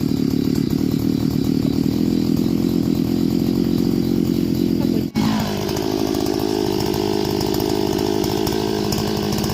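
Small engine running fast and steadily. About five seconds in it drops out sharply for an instant, then its pitch falls and it settles at a lower, steady speed.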